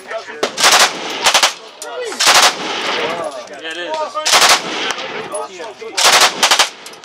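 Stechkin APS machine pistol firing 9x18mm Makarov on full auto in short bursts, about five bursts of a few rounds each with brief pauses between them.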